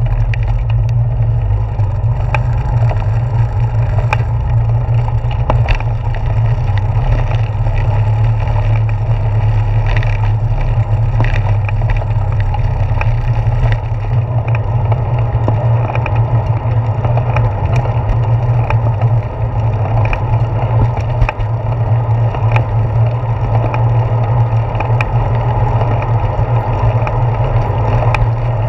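Steady low rumble of wind and vibration picked up by a handlebar-mounted GoPro as a bicycle rolls along, with scattered clicks and rattles from bumps. The ride starts across a wooden boardwalk and goes on along a paved path.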